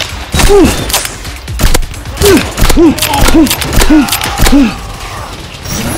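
Rapid gunshot-style sound effects in a foam-dart blaster fight: a string of sharp shots. From about two seconds in, a run of short tones that rise and fall comes about every half second.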